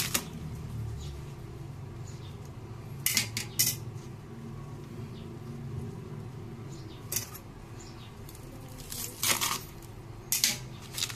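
Kitchen knife chopping through a bundle of green beans onto a plastic cutting board: sharp knocks a few seconds apart, two of them close together about three seconds in.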